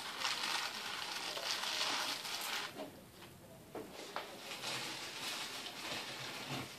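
Electric juicer shredding leafy greens as they are pushed down its feed chute: a hissing grind that comes in two spells, easing off around three seconds in and picking up again about four and a half seconds in.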